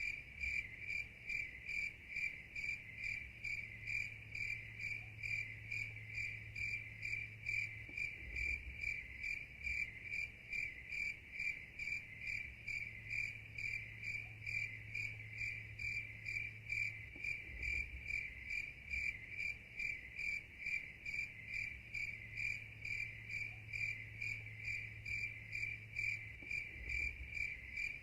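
Crickets chirping: a steady high chirp repeating about twice a second, with a faint low hum underneath.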